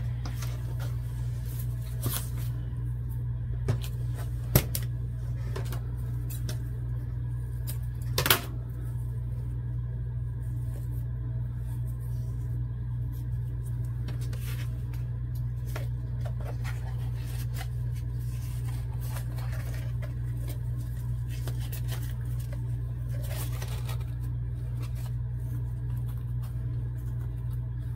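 Quiet handling of craft supplies on a cutting mat over a steady low hum, with a few sharp clicks and knocks in the first nine seconds as tools are picked up and set down, then faint rustling of ribbon being threaded and tied.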